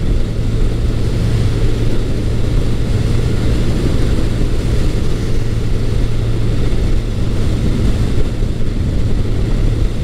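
1980 Honda CB900 Custom's air-cooled inline-four engine, through its stock exhaust, running at a steady cruise with no change in pitch, mixed with wind noise from riding at speed.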